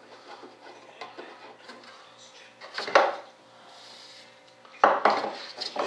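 Workshop handling sounds on a wooden model airframe: faint rubbing and tapping, a sharp clack about three seconds in, a short hiss after it, and a louder knock near five seconds in.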